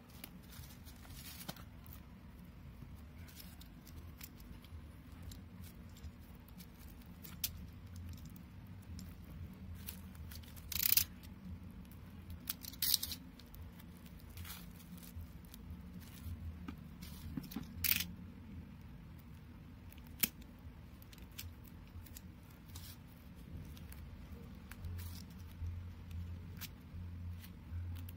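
Hands handling a cardboard album box and picking at its tape seal: scattered scrapes, crinkles and taps, with a few sharper scratchy tearing sounds around the middle, over a steady low hum.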